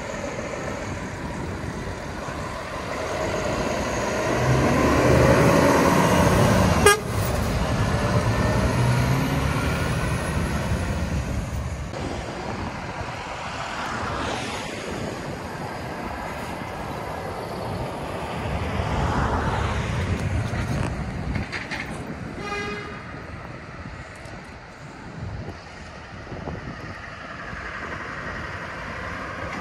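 Heavy lorries driving past close by, engines and tyres rumbling, loudest as one passes about a quarter of the way in, when a sharp click is heard. A short horn toot sounds about three-quarters of the way through, then quieter traffic running further off.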